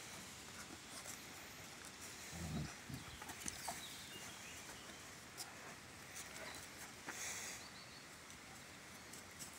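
A cane corso and a presa canario play-fighting on gravel: faint scuffling and scattered clicks of paws on the stony ground, with a short low sound about two and a half seconds in.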